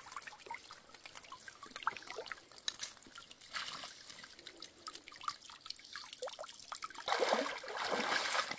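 Water trickling and dripping from a collapsible mesh fish trap lifted out of a stream. From about seven seconds in, louder splashing of feet wading through shallow water.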